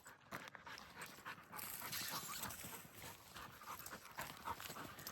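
A gundog panting faintly while working a bird's scent, a little louder for a second or so about a second and a half in.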